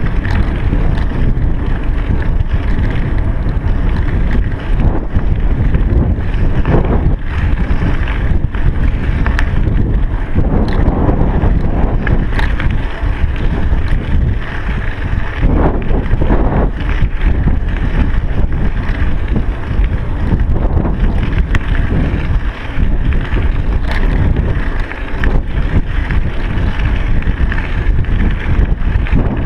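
Wind rushing over a chest-mounted GoPro Hero3's microphone as a bicycle rolls along at speed: a loud, steady rumble with occasional short knocks and rattles.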